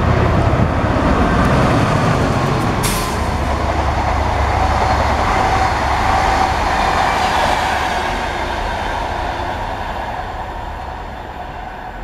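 A Class 67 diesel locomotive passes with its EMD V12 two-stroke engine, a heavy low rumble for the first three seconds or so. The Mk3 coaches then rush by with a faint steady whine in the middle, and the noise fades as the train draws away.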